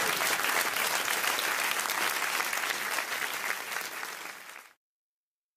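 Studio audience applauding, fading out and cutting off abruptly near the end.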